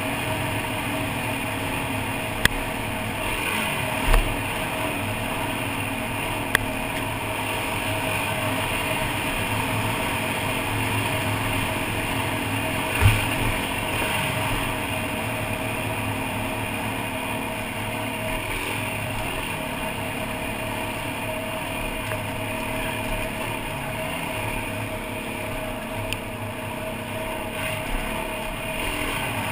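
Dirt bike engine running steadily as the bike rides down a rough dirt track, with a few sharp knocks along the way.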